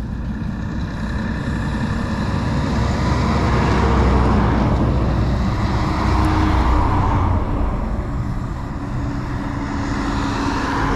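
A road vehicle passing: a low rumble and road noise that build to a peak around the middle and fade away again.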